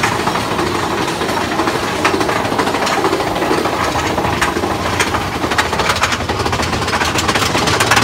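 Mine-train roller coaster running along its steel track: a steady, loud rumble and rattle of the cars and wheels, dense with sharp clacks.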